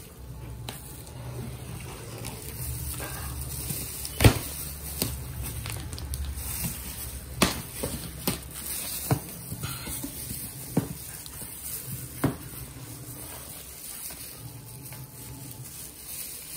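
Cardboard box being unpacked by hands in disposable plastic gloves: plastic crinkling and cardboard flaps rustling, with a string of sharp snaps and taps, the loudest about four seconds in.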